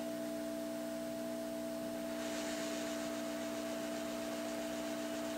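Hot air rework station's heat gun blowing steadily on a circuit board, a steady hum with an airy hiss, melting solder to pull components off an old PC motherboard.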